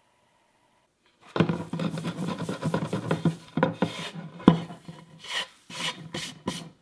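A hand scraping and brushing coarse kosher salt off a wooden cutting board into a plastic fermenting bucket of shredded cabbage, starting after about a second of quiet, with one sharp knock about halfway through and a few short scraping strokes near the end.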